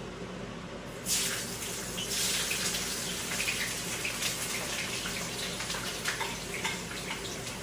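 Onions hitting hot oil in a frying pan and sizzling, starting suddenly about a second in, with many small crackling pops.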